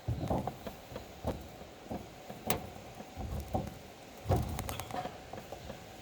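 A string of irregular knocks and thumps, the loudest about four seconds in, over a faint steady hum.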